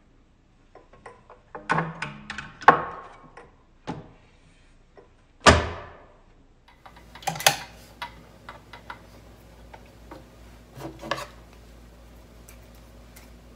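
Handling sounds at a Singer sewing machine as its plastic accessory tray is lifted off: scattered clicks and knocks, one sharp loud knock about five and a half seconds in, then lighter clicks. A faint steady hum comes in about seven seconds in.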